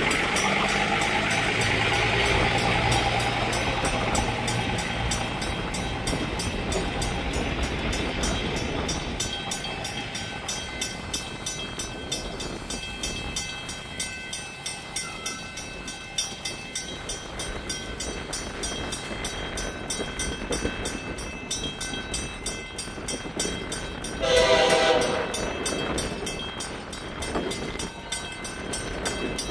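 Amtrak Acela high-speed train approaching on curved track with a steady rumble and hum, sounding one horn blast of about a second and a half some 24 seconds in.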